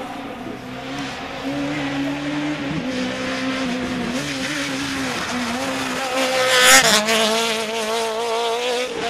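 Peugeot 106 rally car engine running hard as it approaches, its pitch stepping up and down with gear changes and lifts off the throttle. It is loudest as it passes, about two-thirds of the way in, then keeps revving high with a wavering pitch as it pulls away.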